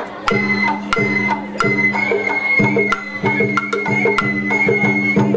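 Festival float music (Sawara-bayashi): a bamboo flute holds long high notes over steady lower tones, punctuated by sharp drum and struck-metal beats in a repeating rhythm.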